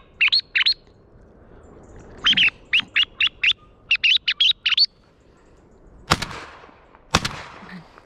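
Quick high bird chirps in two rapid runs, then two shotgun shots about a second apart, each followed by a short echo.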